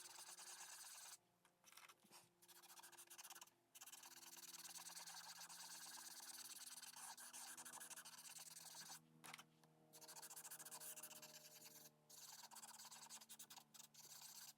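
Faint scratchy rubbing of chalk pastel being worked onto coloring-book paper, in long strokes broken by a few short pauses.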